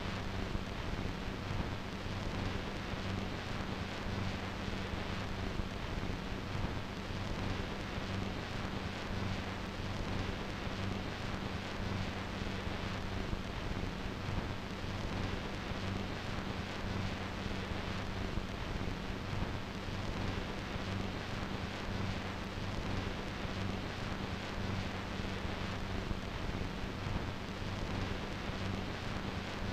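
A steady rushing noise with a low hum beneath it, unchanging in level.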